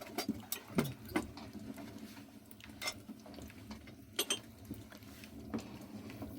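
Cooking pots and utensils being handled: a few scattered light clinks and knocks over a faint steady background.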